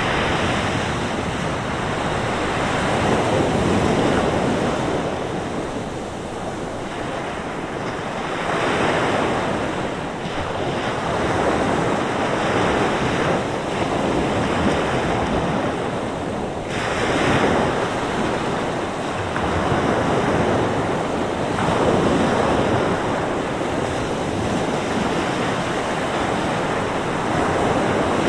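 Mediterranean sea waves breaking on the beach one after another, with wind blowing. Each wave surges up and falls away every four to five seconds over a constant wash of surf.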